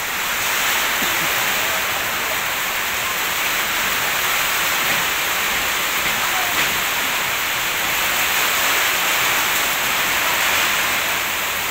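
Heavy storm rain pouring down, a loud steady rushing hiss.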